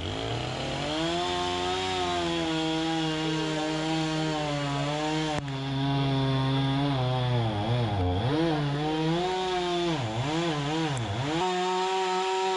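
Chainsaw cutting into a Douglas fir log, running steadily under load for several seconds, then throttled down and back up several times before revving freely near the end.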